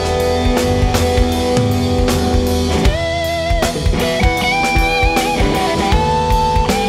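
Live rock band playing an instrumental passage: a semi-hollow electric guitar plays held lead notes that bend and waver over a drum kit and bass.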